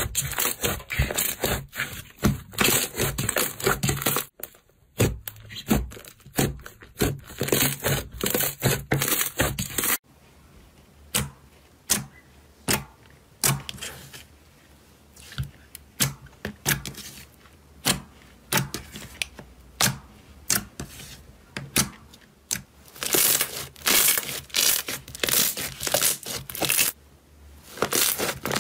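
Hands working slime, with crackling and popping from trapped air. A pink slime is kneaded with dense crackling. About ten seconds in, a glossy purple slime is poked with a finger, giving separate sharp pops. Near the end, a thick lavender slime is squeezed, with dense crackling again.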